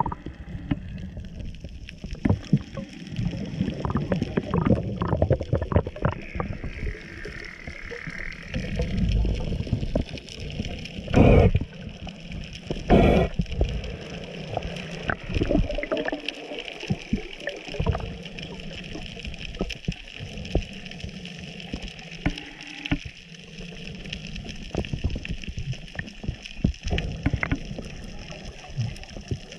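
Underwater sound on a scuba dive: muffled water noise with dense scattered clicks and crackling and a low rumble, broken by two loud rushing bursts about eleven and thirteen seconds in.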